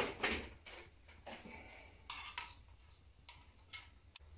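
A few light clicks and taps from handling the new LED downlight's cable and plastic plug. The loudest comes right at the start.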